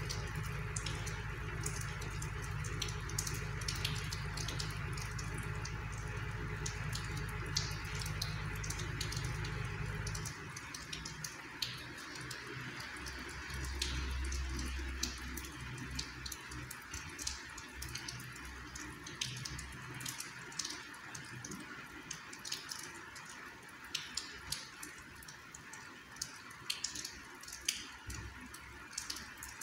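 Light rain falling, with irregular drops ticking and dripping close by. A low rumble underneath stops abruptly about ten seconds in.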